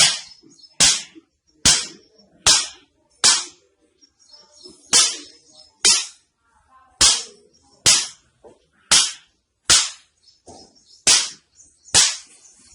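Sharp strikes from a spine treatment, repeating about once a second, with a slightly longer pause about three seconds in.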